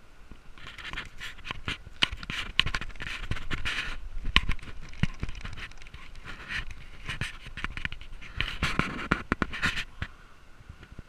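Handling noise from a hand-held action camera: irregular scraping, rubbing and knocks on its housing as it is gripped and swung around, loudest about two to five seconds in and again near the end.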